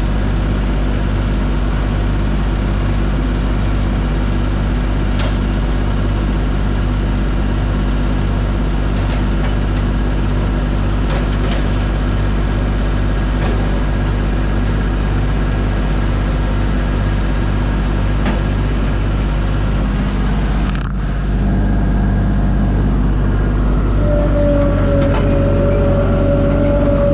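Diesel engine of farm machinery running steadily under load. About two-thirds of the way through the sound changes abruptly, and a few seconds later a steady high tone comes in over the engine.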